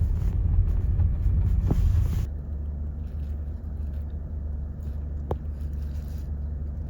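Car running: a low rumble that drops suddenly to a quieter, steady low hum about two seconds in.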